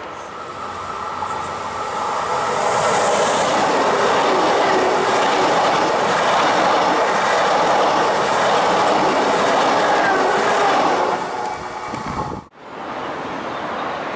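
Passenger train passing close at speed, a loud rush of wheel and rail noise that builds over the first two seconds, holds, then falls away about eleven seconds in. After a sudden cut near the end, a quieter steady rail noise follows.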